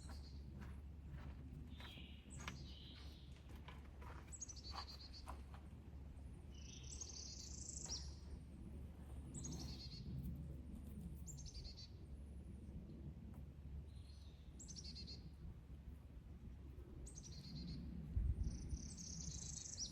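Songbirds calling, with many short, high chirps that drop in pitch, repeated throughout over a steady low rumble. There is a low bump near the end.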